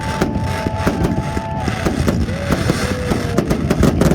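Aerial fireworks going off in a rapid, continuous barrage of bangs and crackles, with several drawn-out whistling tones that hold and then dip in pitch.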